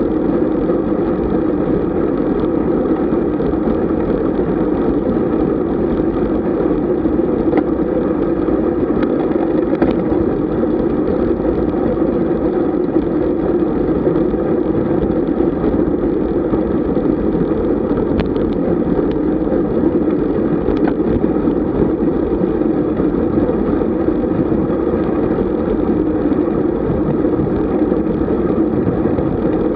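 Steady wind and road noise from riding a road bicycle at speed.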